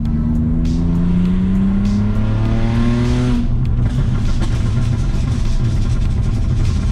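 BMW E39's engine heard from inside the cabin, its revs rising steadily under acceleration for about three and a half seconds, then dropping as the manual gearbox is shifted up a gear. After the shift it runs on at a steady, lower pitch.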